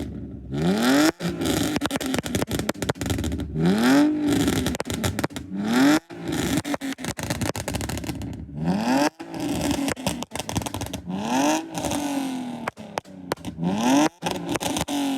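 BMW E46 328i's tuned 2.8-litre straight-six being blipped repeatedly, about six revs that rise and drop back every two to three seconds, with sharp pops and crackles throughout.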